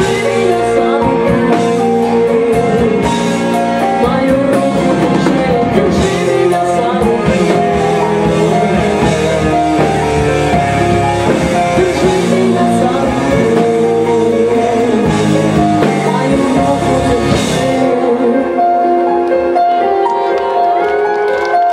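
Live rock band playing, with a woman singing over guitar, bass and drum kit. The drums stop about three-quarters of the way in, leaving held chords as the song winds down.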